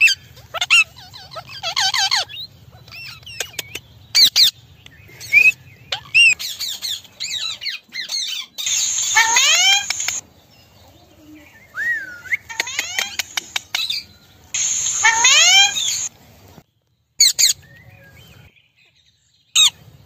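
Rose-ringed parakeets (Indian ringneck parrots) calling: a string of shrill squawks and screeches that glide up and down in pitch, many short calls with abrupt stops and pauses between them.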